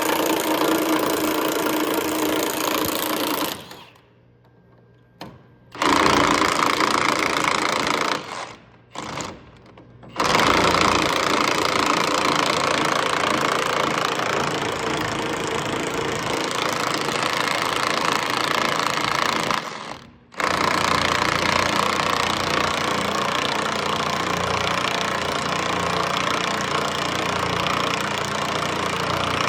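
Machinery running with a steady mechanical clatter, broken by three sudden drops to near quiet, the longest lasting about two seconds.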